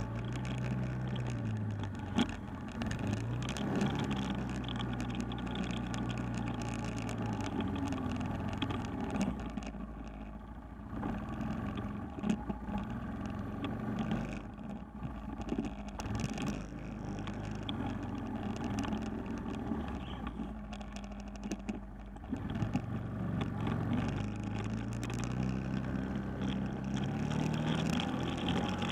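Four-wheeler (ATV) engine running as it is ridden, its pitch rising and falling with the throttle. It eases to a low, quieter run through the middle and climbs again near the end. A few sharp knocks come through along the way.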